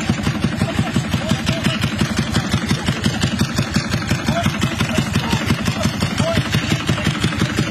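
A vehicle engine running steadily at idle, with an even, rapid throb.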